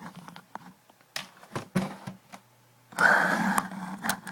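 Handling noise while a camera is being set up: scattered clicks and knocks, then a louder rough rustling noise lasting about a second, from about three seconds in.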